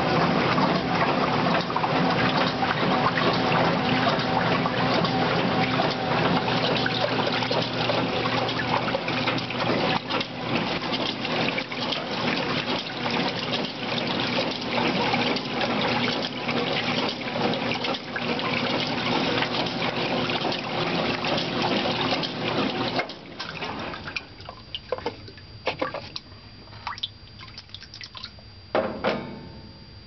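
Norge-built Montgomery Ward top-load washing machine agitating a load: water sloshing and churning over a steady motor hum. About three-quarters of the way through the agitation stops abruptly, leaving scattered drips and small splashes, with one louder splash near the end.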